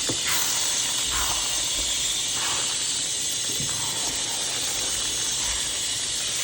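Steady hissing of food cooking.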